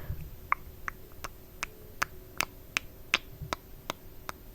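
A steady series of short, sharp clicks, close up, about three a second.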